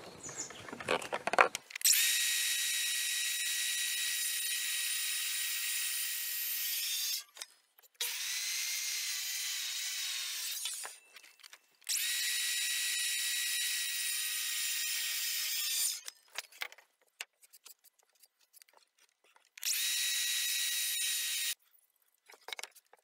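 Makita 36V cordless circular saw running in four steady stretches with short pauses between, making slightly bevelled cuts along the inner lines of hardwood floorboards so that the boards' meeting edges close neatly.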